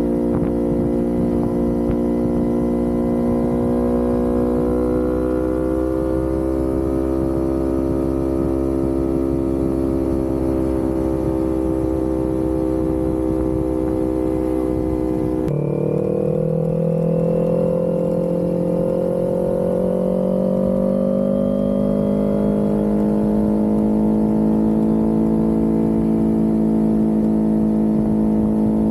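Kawasaki Ninja 400 parallel-twin engine running under way on a canyon road. The engine note drifts slowly, changes pitch abruptly about halfway through, then rises steadily as the bike accelerates.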